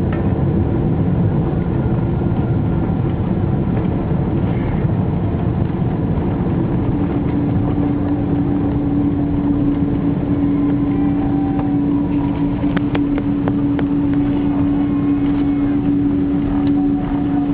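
Cabin noise inside a Boeing 777 rolling on the ground after landing: a steady rumble of engines and airflow with a steady hum that drops slightly in pitch partway through. A few light clicks and rattles come near the end.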